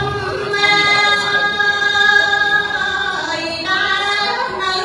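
A woman singing Khmer smot, unaccompanied Buddhist chant, into a microphone: long held notes that waver and slide between pitches.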